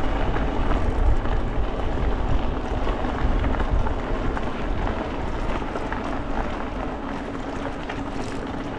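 Wind buffeting the microphone and the tyres of a Jasion EB7 2.0 folding e-bike rolling over an unpaved trail, with many small crackles from the surface. It grows gradually quieter through the middle.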